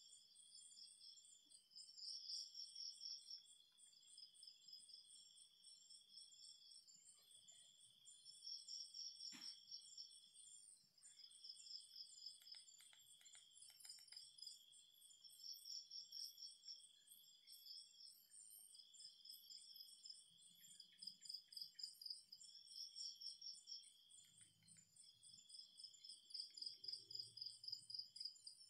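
Crickets and other night insects chirping, several at once at different pitches in long pulsing trills. A single sharp click comes about a third of the way through, and there is faint low rustling near the end.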